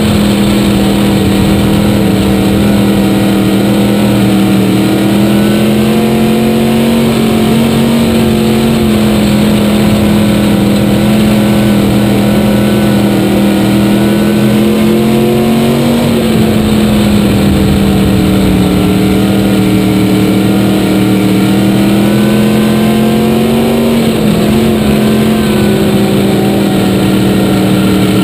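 Dirt-track race car engine heard from inside the cockpit, running hard, its pitch easing off and climbing back again a few times as the car laps the track.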